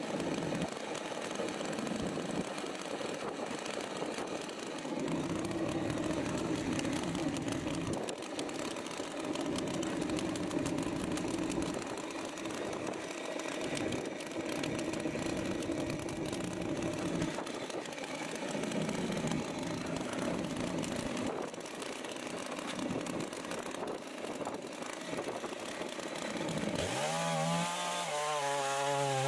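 Large two-stroke chainsaw running in a chainsaw mill, ripping a lengthwise slab cut through a log, its tone shifting now and then through the cut. Near the end the engine note becomes a clear, steady pitch.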